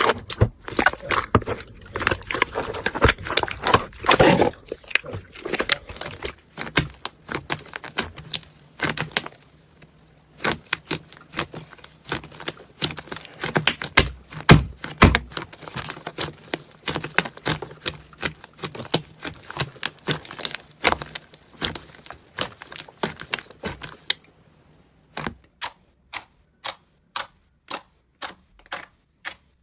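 Slime being squished and poked, making dense sticky clicks and pops. Near the end come separate sharp clicks about two a second.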